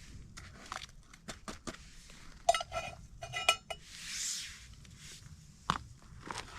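Metal camping cookware clinking: light clicks and handling knocks, with two ringing metallic clinks about halfway through and a short hiss just after them.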